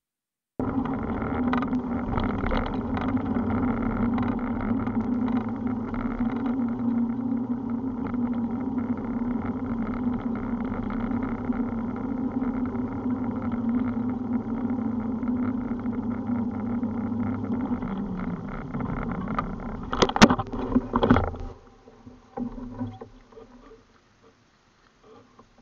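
A motor hums steadily at one pitch, then winds down with falling pitch about 18 seconds in. Two or three sharp knocks follow around 20 seconds, after which it is much quieter.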